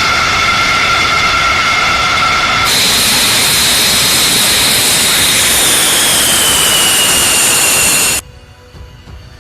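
F-15 Eagle twin jet engines running loud: a steady high whine over a rush of noise. About three seconds in the sound jumps to a higher whine that slides down in pitch, and the sound cuts off abruptly near the end.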